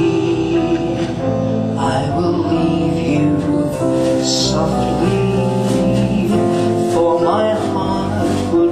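A man singing a slow ballad live, holding long notes with vibrato, accompanied by a band with a plucked double bass.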